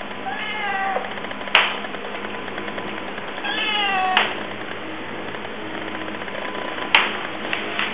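Young cat meowing twice, each call short and falling slightly in pitch, the first about half a second in and the second around three and a half seconds in. Sharp clicks follow each meow and come again near the end, louder than the meows.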